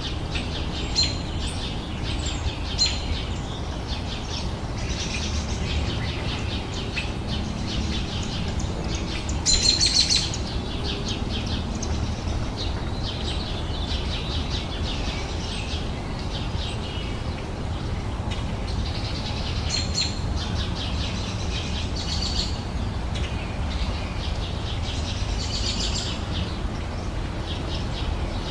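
Birds singing outdoors: many short, rapid chirps and trills from several birds throughout, with the loudest burst about ten seconds in. A steady low rumble runs underneath.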